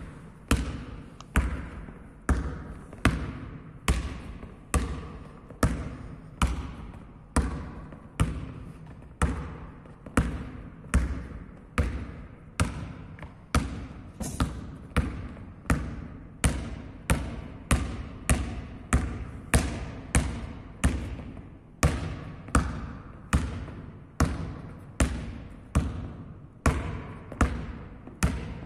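Basketball dribbled steadily on a sports hall floor, about one and a half bounces a second, each bounce ringing on in the hall's echo.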